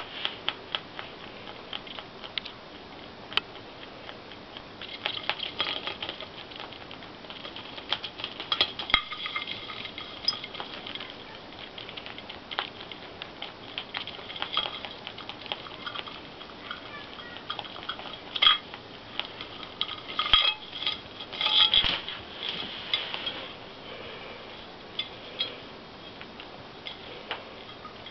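Lop-eared rabbit feeding on dry hay and gnawing at a willow basket on a plate: crisp crunching and rustling with many sharp clicks, busiest and loudest about two-thirds of the way through.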